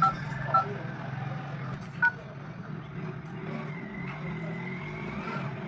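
Key-press tones of a Samsung B310 keypad phone: three short beeps, one at the start, one about half a second in and one about two seconds in, as a reset code is keyed in. A steady low hum runs underneath.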